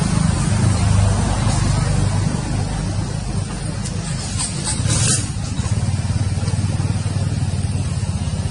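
A motor engine running steadily, a low rumble throughout, with a brief burst of higher noise about four to five seconds in.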